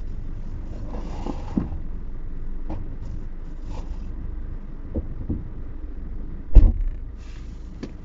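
Car engine idling, heard from inside the cabin as a steady low rumble, with a few small knocks and one heavy thump about six and a half seconds in.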